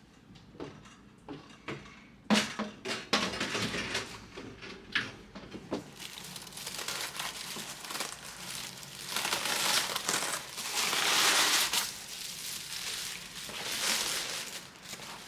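Handling noise: scattered knocks and clicks, then a longer crinkling rustle that swells and fades, like a bag or packaging being handled.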